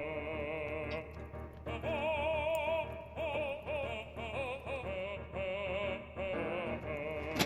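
Background music with a singing voice whose notes waver with vibrato, in an operatic style.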